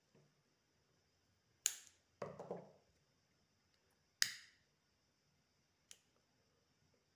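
Scissors snipping through braided cord with a sharp click, followed by a short clatter as the scissors are set down on the table. A pocket lighter is then struck with a sharp click, and a second, softer click comes about a second and a half later as it lights.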